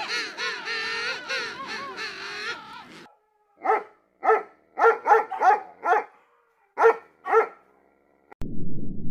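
A wavering, whining pitched call for the first few seconds, then a dog barking about eight short barks in uneven bursts. Near the end the sound cuts suddenly to a low rumbling noise.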